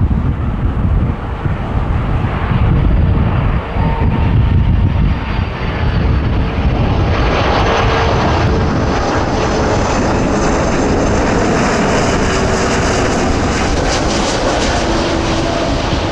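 Airbus A330-300 jet airliner on landing approach. Its Rolls-Royce Trent 700 engines grow louder from about halfway as it comes close, with whining tones that slowly drop in pitch. Wind rumbles on the microphone in the first half.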